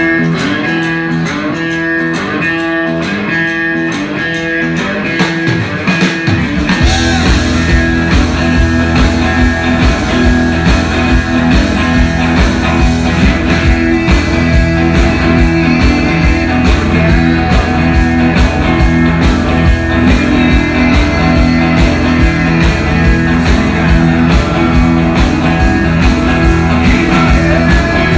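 Live rock band playing. Electric guitar opens with a repeated riff, then bass and drums come in about six seconds in and the full band plays on steadily.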